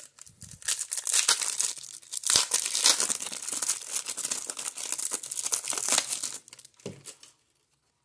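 Foil wrapper of a 1994 Topps Stadium Club baseball card pack being torn open and crinkled by hand, a dense crackling that dies away about six seconds in.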